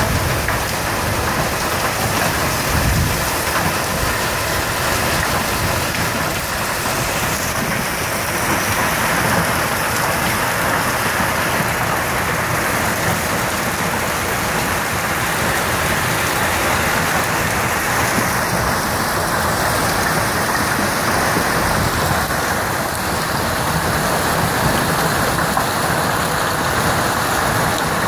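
A hailstorm with hail and heavy rain pelting down: a loud, steady, dense hiss of countless impacts that holds unchanged throughout.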